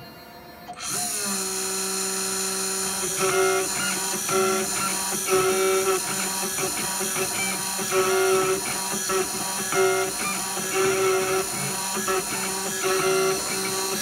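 IS400 CNC engraver making a final cut about 0.020 inch deep in an aluminium cylinder with a single-flute conical end mill. The machine starts up about a second in with a rising whine and settles to a steady hum, then from about three seconds its stepper motors whine at changing pitches in short, repeated moves as the cutter engraves.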